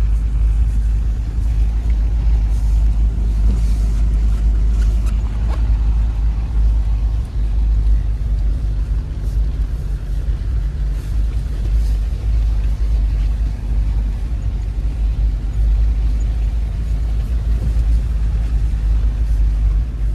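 Vehicle driving along a rough road, a loud, steady low rumble of engine and road noise with no distinct events.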